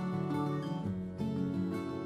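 Background music: acoustic guitar picking notes.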